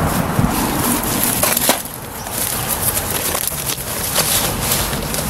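Dry twigs and leaf litter crackling and snapping underfoot and under hand, with rustling as camping gear is stuffed into a bag; a few sharp snaps come in the first two seconds.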